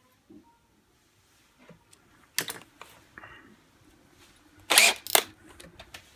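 Sharp clicks and knocks of small hard objects being handled and set down on a workbench: a couple of clicks a few seconds in, then two louder knocks near the end.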